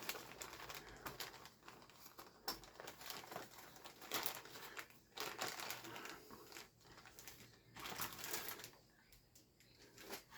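Plastic packaging crinkling and rustling in fits and starts as plastic model-kit parts on their sprues are handled, with small clicks of plastic. It is fairly quiet.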